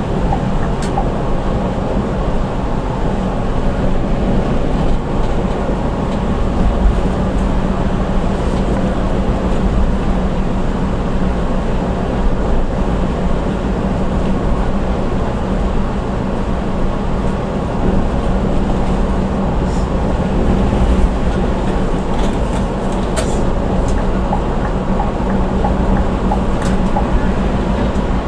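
Bus engine and road noise heard inside the cabin while cruising on the highway: a steady drone with a low hum, with a few light clicks near the end.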